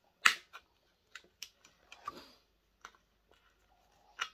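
Wire cutters snipping through the insulated wires of a PC power supply unit: a series of sharp snips, the first the loudest, with light handling clicks in between.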